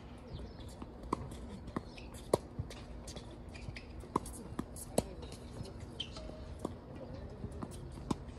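Tennis ball struck back and forth by racquets in a rally on a hard court: a series of sharp pops, the loudest a second or two apart, with smaller ball bounces and footsteps between.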